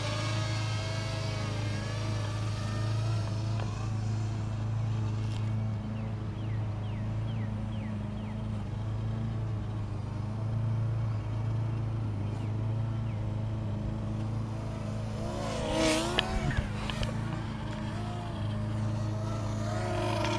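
Parrot Rolling Spider minidrone's small quadcopter rotors whirring in flight, the whine's pitch wavering up and down as it manoeuvres. About sixteen seconds in, the whine swings quickly up and down and grows louder, with a few sharp clicks.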